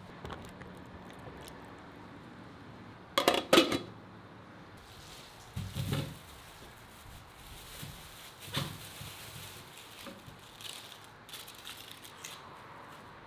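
Kitchen handling sounds: a loud double clatter of kitchenware about three seconds in, then a plastic bag rustling, then small scrapes and ticks of a knife peeling an onion.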